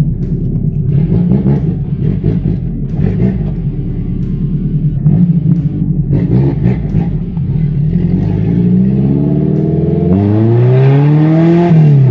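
Ford Versailles' carbureted VW AP four-cylinder engine pulling under way with a low rumble, then accelerating with its pitch climbing steadily over the last few seconds before falling away near the end.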